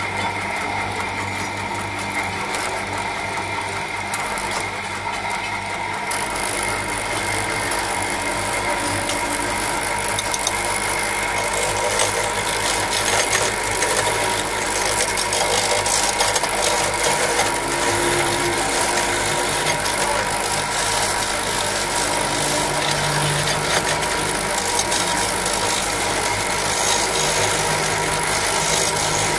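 Wood lathe running steadily as a hand-held chisel cuts into a spinning laminated cane cricket-bat handle blank, turning it round. A steady motor hum, with a scraping hiss of the cut that grows louder from about six seconds in.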